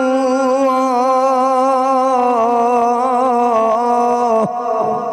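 A male Quran reciter (qari) holds the final elongated vowel of the verse-ending word "aḥadā" as one long melodic note in mujawwad style, with a wavering ornamented line. He breaks off about four and a half seconds in, and the sound then fades away.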